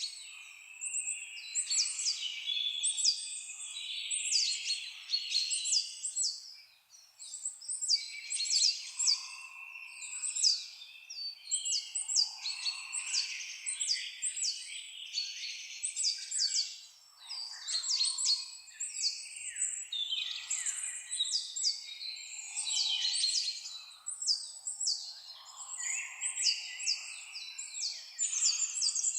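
A chorus of several songbirds singing without a break: many quick, high, downward-sweeping chirps over lower warbling phrases.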